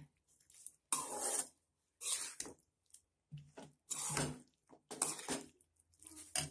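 Metal ladle stirring thick broccoli-and-pea gravy in a stainless steel pot: five scraping strokes against the pot, about one a second.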